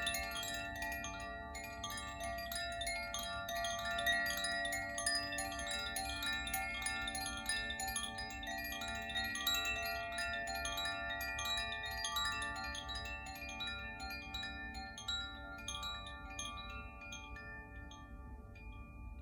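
Koshi chime being gently swung, its clapper striking the tuned metal rods inside the bamboo body again and again, so many overlapping bright ringing tones build into a shimmering wash. The strikes thin out and the ringing fades over the last couple of seconds.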